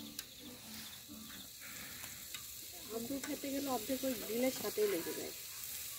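Marinated chicken pieces sizzling on a grate over live charcoal, a steady high hiss.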